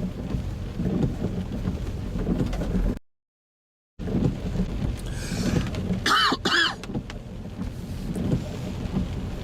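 Inside a moving car's cabin in heavy rain: a steady low rumble of road noise and rain on the car. The sound cuts out completely for about a second near the start. About six seconds in come two short high squeaks in quick succession.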